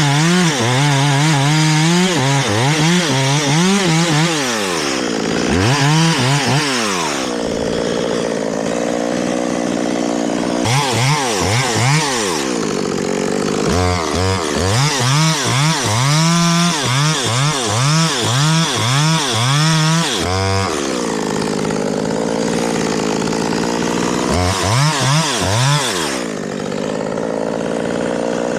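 Two-stroke chainsaw cutting limbs, its engine revving up and down over and over, dropping back to idle several times between cuts.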